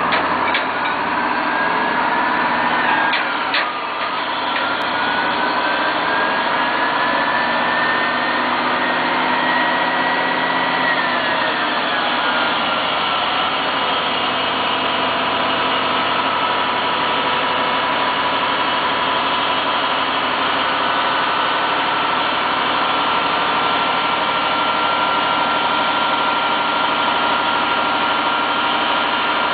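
1990 GMC TC7 boom truck running steadily, with a whine that rises slowly over the first ten seconds or so, drops about twelve seconds in and then holds steady. A couple of sharp clicks about three seconds in.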